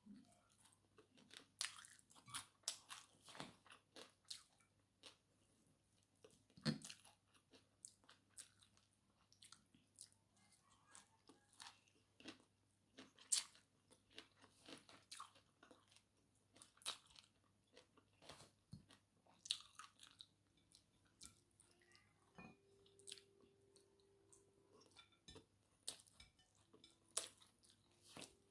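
Close-up mouth sounds of chewing rice and fried fish eaten by hand, broken by irregular sharp, crisp crunches, a few much louder than the rest.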